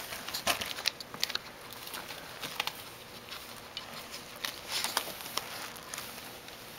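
A Shih Tzu's paws and claws scratching and crinkling a flexible ribbed ferret tube: irregular clicks and rustles, with louder clusters about half a second in and around five seconds.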